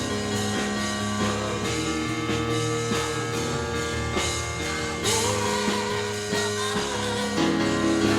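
Worship band music: held chords with scattered drum hits.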